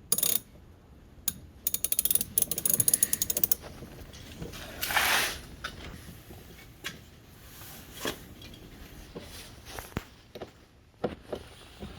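Socket wrench ratchet clicking in a quick run of pawl clicks as a bolt is turned, followed by scattered single clicks and a short rushing noise about five seconds in.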